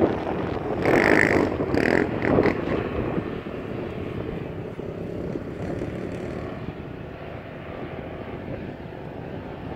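Off-road vehicle's engine revving hard as it drifts across the sand, with a few short high-pitched notes in the first three seconds, then fading to a steadier, quieter drone.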